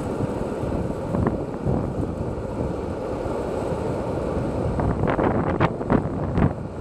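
Wind buffeting the microphone of a camera moving down a street, over a steady low rumble of rolling on asphalt. From about five seconds in, a run of sharp crackles and pops joins it.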